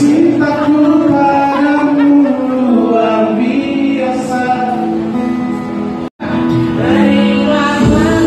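Live pop singing by a man into a microphone, accompanied by a strummed acoustic guitar, with sustained sung notes. About six seconds in the sound cuts out for an instant, and the singing resumes as a man and a woman sing a duet.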